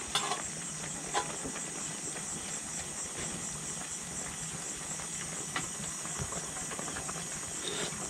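Crickets chirring steadily, with a few light metallic clinks of a ladle and spoon against an aluminium cooking pot, the first two within the first second or so and another near the middle.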